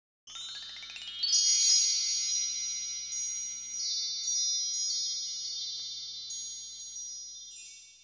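High, shimmering chimes: a quick rising run of bell-like tones, then many tones ringing together with a few fresh strikes, slowly fading out near the end.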